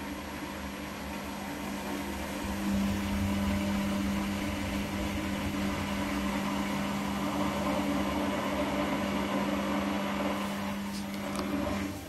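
Hotpoint-Ariston Aqualtis front-loading washing machine running: a steady motor hum with a whine, which grows louder about two and a half seconds in. A couple of light clicks come near the end.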